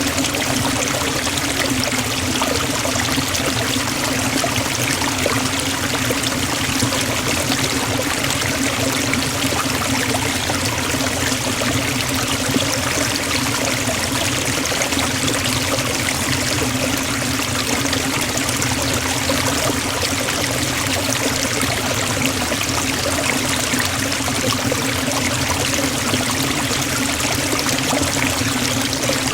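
Waterfall and stream water falling and rushing in a steady, unbroken wash of noise.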